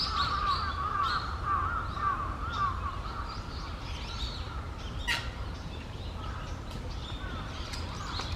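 A grey heron sneezes once, a short sharp burst about five seconds in. Before it, other birds call in a quick run of chirping notes, over a steady low rumble.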